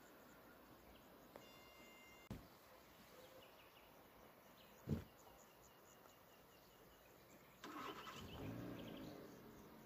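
Near silence of a quiet rural evening, broken by a single sharp thump about five seconds in and a spell of low engine-like noise near the end.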